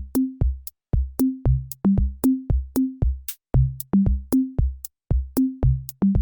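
Background electronic music: a steady drum-machine beat with deep bass drum hits and clicks, about four beats a second.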